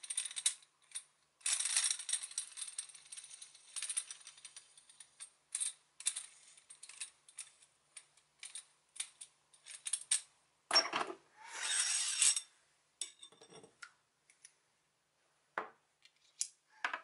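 Bearing press being unwound: its spun T-handle rattles along the steel threaded rod, followed by scattered metallic clicks and clinks as the press parts come off the freehub, a louder clatter of metal parts a little past halfway, and a few light knocks near the end as parts are set down.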